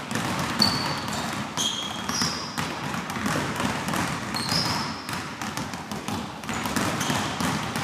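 Many basketballs dribbled at once on a gym floor, an irregular clatter of overlapping bounces, with a few short high squeaks from sneakers on the court.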